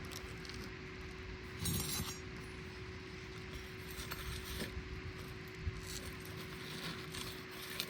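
Scattered short scrapes and clinks of asphalt shingles being handled and pried at, the strongest about two seconds in, over a faint steady hum.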